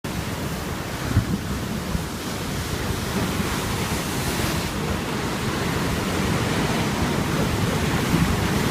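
Sea waves washing onto the shore in a steady hiss, one surging a little brighter about halfway through, with wind rumbling on the microphone.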